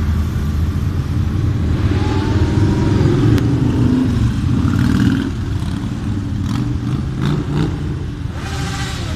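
Road motorcycles riding past one after another, their engines rumbling and revving up as they pull away through a roundabout. The sound is loudest about two to five seconds in.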